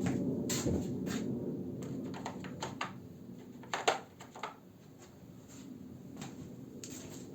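Scattered light clicks and knocks of tools and metal parts being handled, the loudest about four seconds in, over a low hum that fades during the first few seconds.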